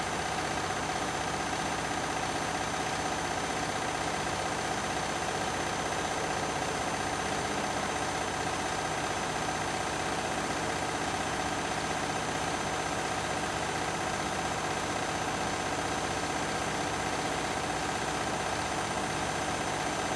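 Beko and Candy washing machines on a spin cycle, their drums running at a steady speed with a constant motor whine and hum.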